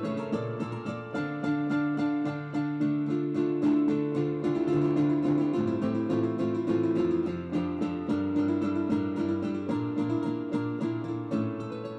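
Instrumental background music of plucked strings and keyboard, with quick repeated plucked notes over held chords, growing quieter near the end.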